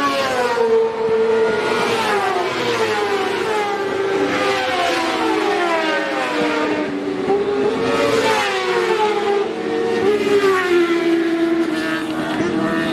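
A pack of sport motorcycles racing at high revs, several engines overlapping, their pitch repeatedly climbing and dropping as they shift gears and pass by.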